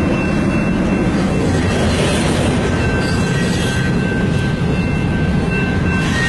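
CN mixed freight train passing close by behind two leading diesel locomotives: a loud, steady rumble of engines and rolling cars, with a faint thin high whine over it.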